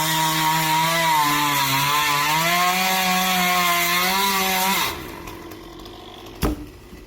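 Chainsaw cutting through wood, its engine speed wavering under load, then throttled down and falling away about five seconds in. A single sharp knock follows about a second and a half later.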